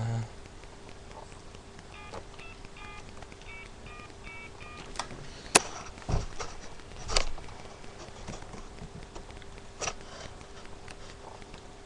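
Telephone keypad tones as a number is dialed: a quick run of short beeps about two seconds in. Several sharp clicks and knocks follow, the loudest near the middle.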